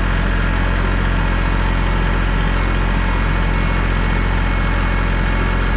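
Kubota L3301 tractor's three-cylinder diesel engine running steadily as the tractor drives, with no change in pitch or level.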